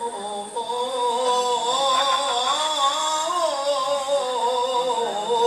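A man's high, ornamented Arabic chant into a microphone, the melismatic style of a qari reciting: a short break about half a second in, then one long held phrase whose pitch wavers, climbs in the middle and settles back down.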